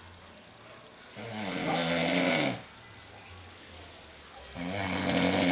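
A man snoring loudly: two long, rasping snores, each about a second and a half, about three and a half seconds apart. The second one is still going at the end.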